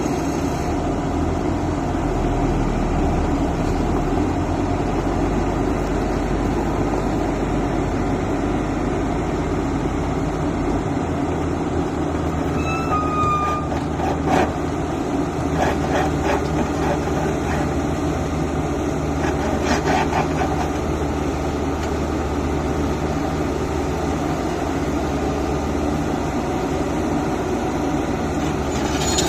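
Hyundai PC220 crawler excavator's diesel engine running steadily under load as the machine tracks down off a trailer onto a gravel pile, its low drone shifting about a third of the way through. Scattered clanks and rattles come near the middle.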